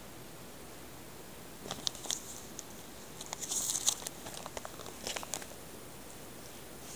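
Plastic sleeves of a CD case crinkling and clicking as the case is handled, in three short bursts about two, three and a half, and five seconds in, the middle one the loudest.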